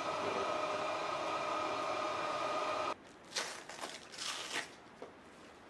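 A steady machine hum over a hiss, with two clear tones, which stops abruptly about three seconds in. Then come two short bursts of rustling as flight-vest straps and fabric are handled.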